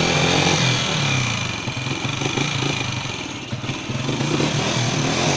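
Small motorcycle engine running steadily around idle. The uploader claims it is fed on HHO gas from a homemade water-electrolysis generator instead of petrol. Its level sags briefly about three seconds in and then picks up again.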